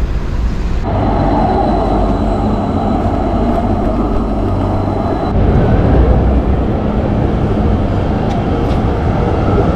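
Loud, steady rumble of a moving vehicle, most like rail transport, with a thin high whine for a few seconds. The sound changes abruptly about a second in and again about five seconds in.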